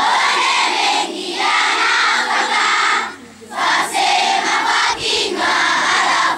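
A large crowd of schoolchildren singing together in unison, in loud sustained phrases of one to two seconds separated by short breaks.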